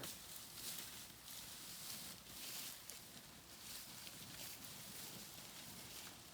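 Faint footsteps and rustling of dry corn stalks underfoot, a soft irregular crunching.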